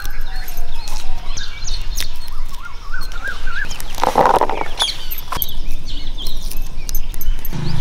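Birds calling, with wavering whistled notes and a loud, harsh squawk about four seconds in, like a chicken.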